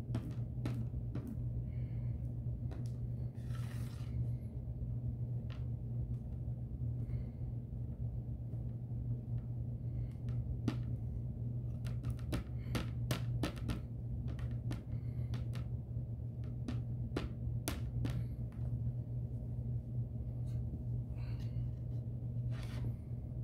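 Putty knife scraping across the ribbed plastic underside of a Lego baseplate while spreading adhesive, making a scattered series of irregular clicks and brief scrapes over a steady low hum.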